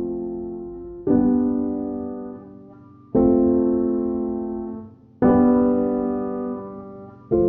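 Background music of slow piano chords: a new chord is struck about every two seconds and left to ring and fade before the next.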